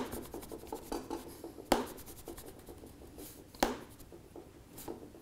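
A coin scraped repeatedly across the back of a Huawei Nova 3i phone: dry, rapid scratching, with a sharp click about every two seconds.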